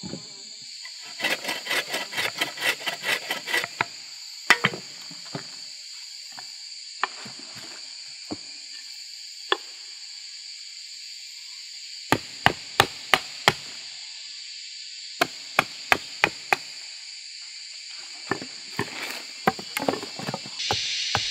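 A blade chopping and notching a green wooden pole: a quick run of light taps near the start, a few single knocks, then several runs of sharp blows, about four a second, in the second half. A steady high insect drone goes on underneath.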